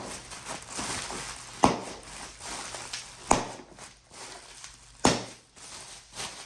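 Paper rustling as the pages of a printed tool catalog are leafed through, with a sharp slap about every second and a half as a page turns over, four in all.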